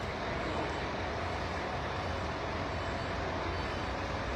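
Steady background din of a roadside bus rest stop: a constant low rumble under an even hiss.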